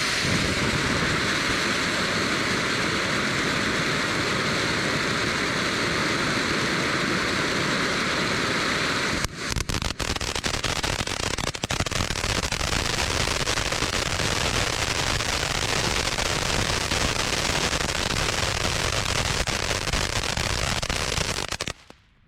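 Axel spinning firework fountain burning: a steady hissing spray of sparks that changes about nine seconds in to a rougher, crackling spray, then cuts off suddenly just before the end as the fountain burns out.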